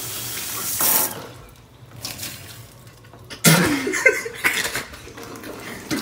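Kitchen faucet running as a man rinses his mouth under it, the water noise dropping away after about a second; then, about halfway through, a burst of throaty gagging and spitting into the sink.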